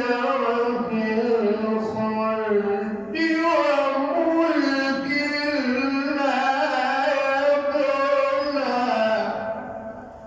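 A man reciting the Quran in the melodic tajweed style, drawing out long ornamented notes that slide up and down in pitch. The voice trails off about nine seconds in.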